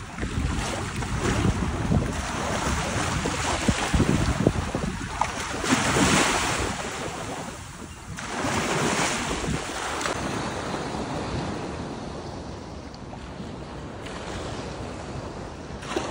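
Small waves washing on a sandy shoreline in shallow water, swelling as a wave rushes in about six seconds in, with wind rumbling on the microphone.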